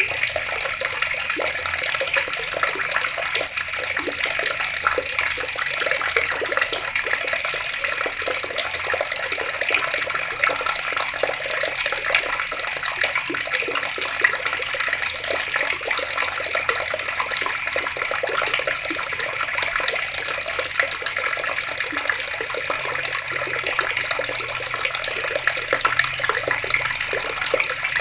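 Water running steadily from an open outdoor tap and splashing below, a continuous spattering stream.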